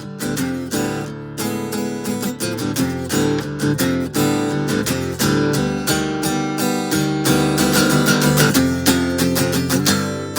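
Acoustic guitar strummed in a steady, driving rhythm, an instrumental stretch with no singing, growing a little louder in the second half.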